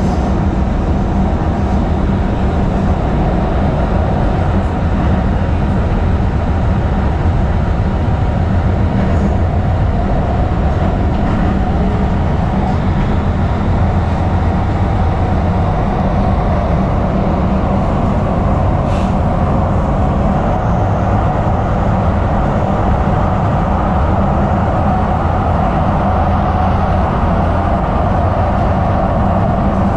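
A 2010 Kinki Sharyo light rail vehicle running along the track: a steady, even rumble of wheels and car body with a faint steady tone over it, and one brief sharp click about nineteen seconds in.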